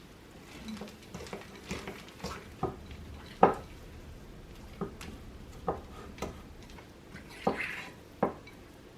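Fork clinking and tapping against a bowl while mixing cake batter, in short, irregular knocks.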